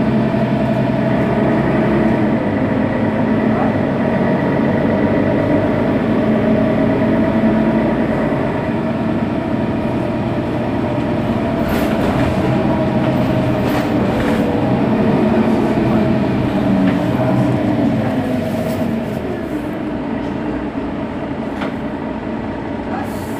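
Mercedes-Benz Citaro bus's rear-mounted OM 457 hLA inline-six diesel engine idling steadily at a standstill, with a hum that slowly bends in pitch in the middle and a few short clicks.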